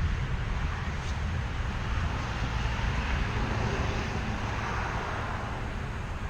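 Steady road-vehicle noise: a low rumble with tyre hiss.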